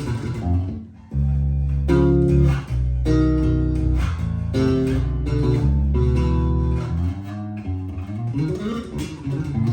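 Fodera Emperor 2 Elite electric bass being played: held low notes and chords, with a brief pause about a second in.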